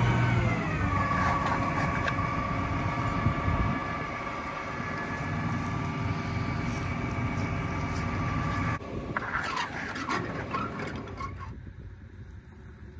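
John Deere 7R 310 tractor's diesel engine running close by, its pitch sliding down in the first second as the revs drop, then holding steady. About nine seconds in it breaks off into a quieter stretch with a few short knocks.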